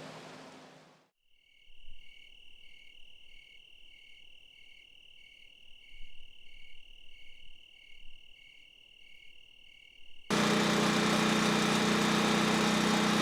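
Insects trilling in a high continuous tone, with a pulsing chirp about twice a second over it. About ten seconds in, a loud steady hiss with a low hum cuts in abruptly.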